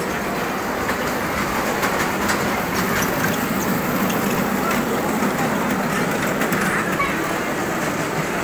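Small kiddie-ride train running on its rail track: a steady wheel-and-motor noise with a faint low hum and scattered light clicks.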